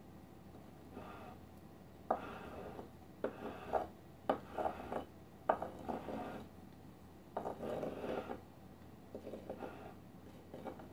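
Silicone spatula spreading frosting around a cake's sides, in a run of short scrapes with a few sharp taps of the spatula against the plate, starting about two seconds in.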